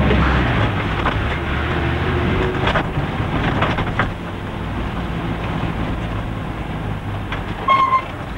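Škoda 1203 ambulance driving, heard from inside the cabin: steady engine hum and road noise, with a few light rattles and knocks a few seconds in and a short high squeak near the end.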